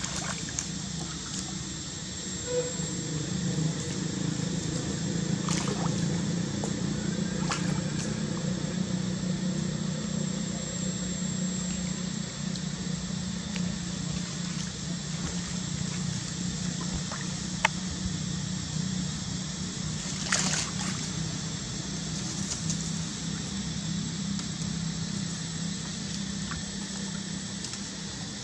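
Water sloshing and trickling as a baby monkey swims and paddles in a shallow pool, with a few brief splashes, the loudest about twenty seconds in, over a steady low hum.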